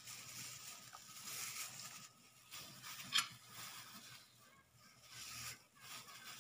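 Faint rustling of a thin plastic food-handling glove as the hand scatters minced garlic over raw meat, with one short sharp click about three seconds in.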